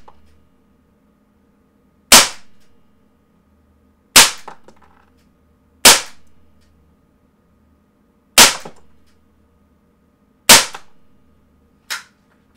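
Umarex Desert Eagle CO2 pellet pistol firing .177 pellets: six sharp pops roughly every two seconds, the last one, near the end, much quieter than the rest.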